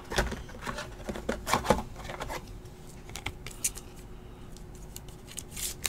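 Rigid plastic top loaders being handled and a trading card slid into one: a scatter of light plastic clicks and scrapes, busiest in the first couple of seconds, with a few more near the end.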